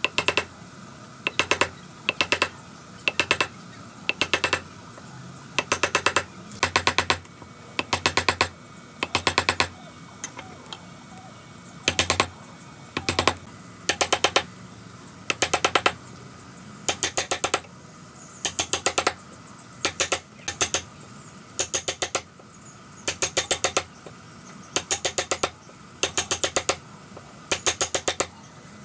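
A wood chisel being driven into a timber block to chop out a mortise, struck in quick bursts of four to six sharp taps, a burst about every second, over a faint steady hum.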